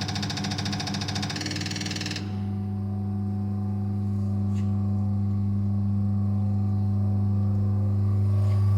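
Caterpillar 3126B HEUI injector firing on a CR618 diesel injector test bench, a rapid even ticking over the bench's steady hum. About two seconds in the injector stops firing, and the test bench motor runs on alone as a steady low hum that grows slightly louder.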